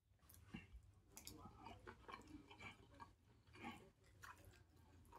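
Faint chewing and lip smacking of a person eating soft steamed fish, a scatter of small wet clicks through the whole stretch.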